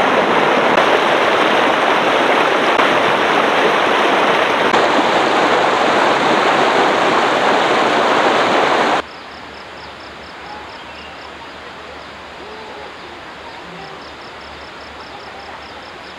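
Rocky river rushing over boulders, a loud steady rush of water that cuts off suddenly about nine seconds in. A much quieter outdoor background follows, with faint high pulsed chirping.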